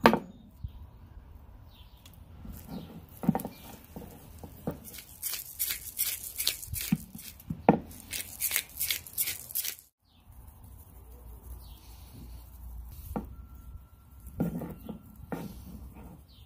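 A hand-held spice grinder is twisted over a raw tomahawk steak, giving a quick run of short, gritty grinding strokes, about three a second. Later come a few dull thumps as the steak is handled and turned on the wooden butcher block.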